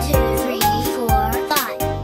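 Upbeat children's background music with a steady beat of about two strikes a second under sustained melody notes.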